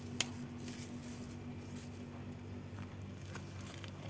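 Quiet background with a faint steady low hum and one sharp click just after the start, plus a few faint ticks.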